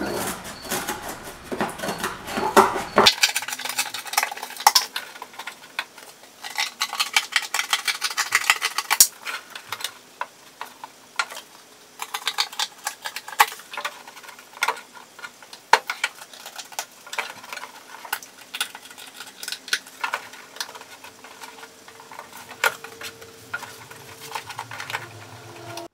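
Scissors cutting through thin cardboard: a long run of crisp, irregular snips and crunches, coming in quick flurries with short pauses between them.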